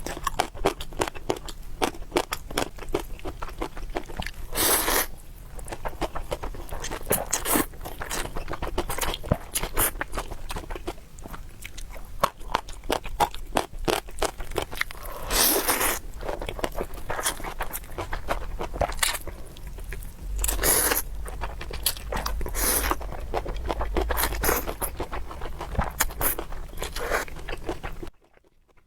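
Close-miked eating: steady chewing and crunching of food, with several louder crunchy bites. The sound cuts off abruptly near the end.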